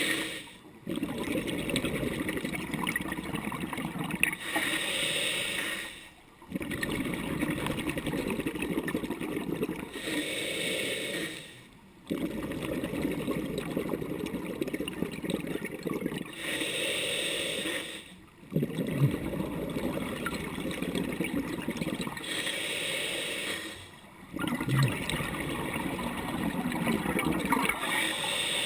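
A scuba diver breathing through a regulator underwater: a short hissing inhale and a longer bubbling exhale, repeating about every six seconds.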